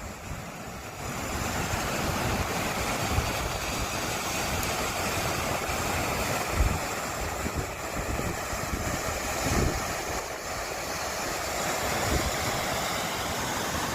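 Strong wind buffeting the microphone: a steady rushing noise with gusts of low rumble that swell and fade irregularly.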